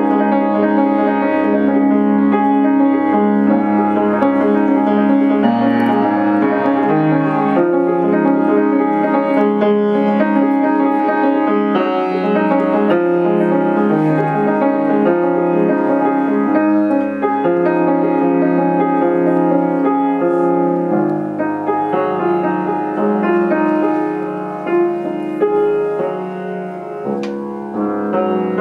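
Solo grand piano, a Yamaha, played in chords and held notes, getting softer over the last few seconds.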